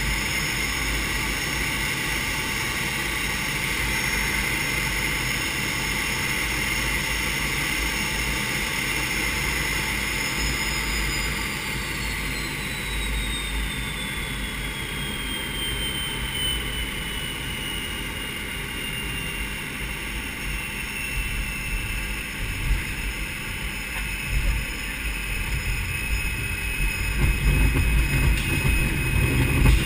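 Aero L-29 Delfín's single M-701 turbojet heard from inside the cockpit: a steady jet whine whose pitch falls over several seconds, about midway through, as the engine is throttled back for the landing flare. Near the end a low, uneven rumble grows louder as the wheels touch down and run on the grass strip.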